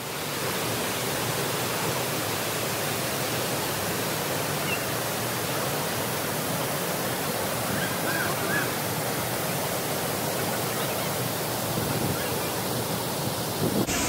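Waterfall pouring into a deep pool: a steady, even rush of falling water.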